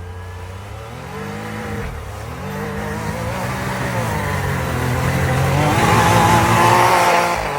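Can-Am Maverick R side-by-side's turbocharged three-cylinder engine revving up and down, building to its loudest near the end and then dropping off sharply.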